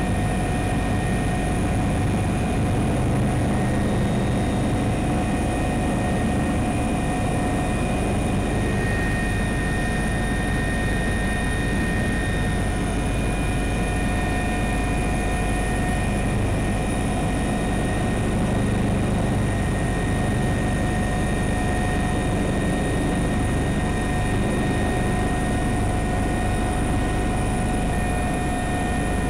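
Helicopter engine and rotor noise heard from inside the cabin, a steady drone with a few steady whining tones above it.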